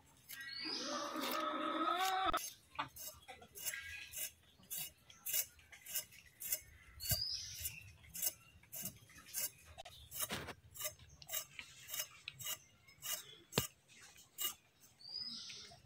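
Sharp knocks and clinks of a kitchen utensil in a steady rhythm, about two a second. Near the start comes a drawn-out call lasting about two seconds.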